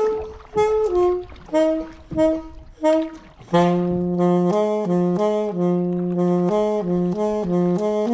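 Background music: a melody of short separate notes, then from about three and a half seconds in a fuller passage with quick-changing notes over held lower ones.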